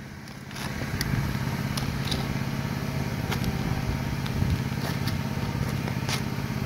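A motor or engine running with a steady low hum, coming up about half a second in and holding steady, with scattered light taps and scrapes of shingles being handled on the roof.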